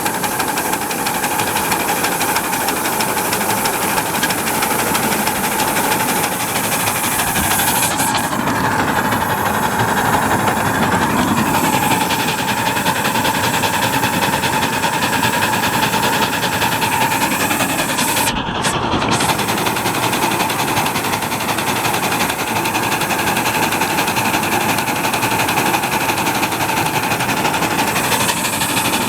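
Miniature live-steam locomotive working hard up a grade with a train behind it, its reverser one notch forward of center for a 1/16-inch valve port opening after a valve gear rebuild. The sound runs on steadily with a constant tone near the middle of the range.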